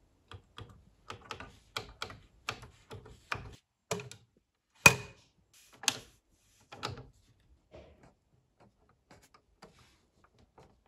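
Plastic front-panel controls of a Funai VIP-3000EE video cassette player clicking under a finger: a quick run of light clicks, then one sharp loud click about five seconds in and a few more, fading to faint ticks near the end.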